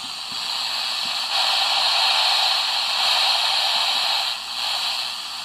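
FM radio static: a tinny hiss from the SoundGear SGCCR clock radio's speaker as its analog tuning wheel is turned between stations with no real reception. The hiss swells about a second in and drops back near the end.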